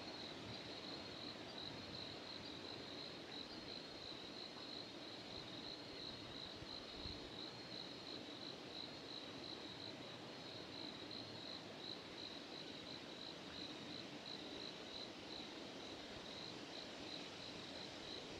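Crickets chirping outdoors at night: a steady, high, evenly pulsing trill, faint over a light background hiss.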